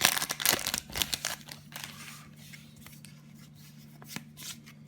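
Foil booster pack wrapper crinkling and tearing open in the first second, then softer scrapes and taps as the cards are slid out and handled.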